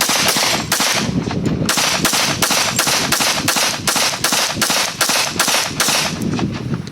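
Rapid semi-automatic pistol fire from a full-size Glock, 10mm or .45 ACP, at a steady pace of about three shots a second. The shots thin out and become fainter about six seconds in.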